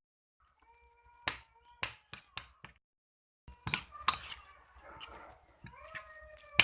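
Utensil clicking against a dish while minced pork is stirred together with egg and seasonings: a string of sharp, irregular clicks.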